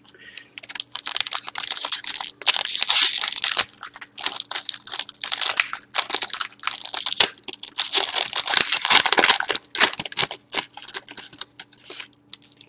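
Wrapper of a hockey card pack being torn open and crinkled by hand, an irregular crackle of plastic and foil that runs on in short bursts.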